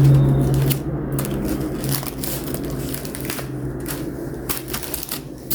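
Corrugated cardboard being rolled, pressed and taped by hand: irregular rustling and crinkling, over a steady low hum.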